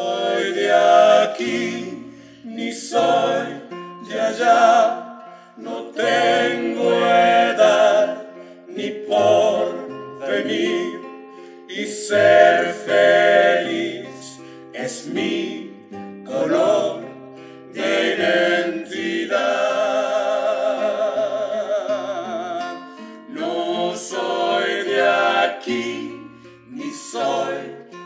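Several voices singing together over acoustic guitar, in sung phrases of about two seconds with short breaks between them. About two-thirds of the way through, the voices hold one long note.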